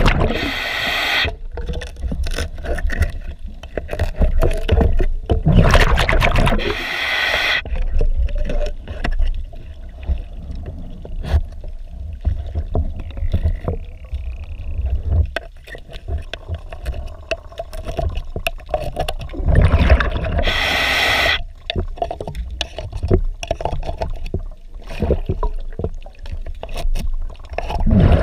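Underwater: a hand scraper scraping and clicking against a boat hull's grated through-hull intake strainer as it knocks off marine growth, in short irregular strokes. A diver's regulator exhales in loud bubbling bursts about a second long, three times: near the start, around six seconds in and around twenty seconds in.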